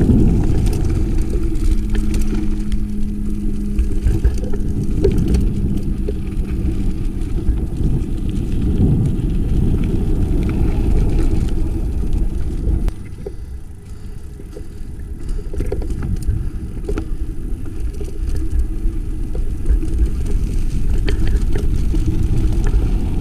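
A mountain bike descending a rocky trail at speed: wind rumbling on the microphone and the bike rattling and clattering over rocks. The sound drops off briefly about halfway through, then picks up again.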